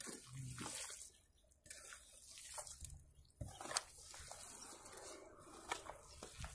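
Hoe blade working wet brick clay mud: irregular wet scraping and squelching as the mud is pushed up against the mound over a wetted floor, with one sharper knock a little past the middle.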